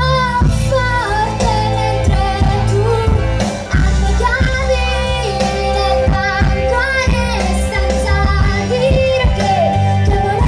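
A young girl singing into a microphone over amplified backing music with a steady beat.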